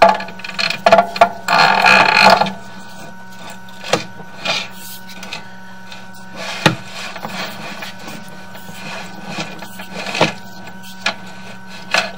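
Sewer inspection camera being pushed down an ABS drain line: the camera head and push cable knock and scrape against the pipe walls in irregular bursts, loudest and densest in the first couple of seconds, then as scattered sharp knocks, over a steady electrical hum.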